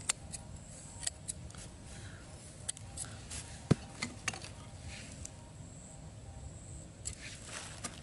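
Small scissors snipping and clicking as thin bamboo sticks are cut and handled, a dozen or so sharp, irregular clicks, the loudest a little before halfway. A faint high steady tone sounds in the background now and then.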